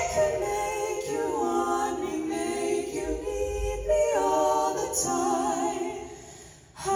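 Mixed-voice a cappella group singing slow held chords in close harmony, moving from chord to chord in phrases of a second or two. The singing dies away near the end.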